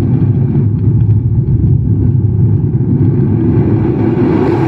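Foley rocket-launch sound performed live by mouth into a close, sensitive microphone: a loud, steady, rushing rumble that turns hissier near the end.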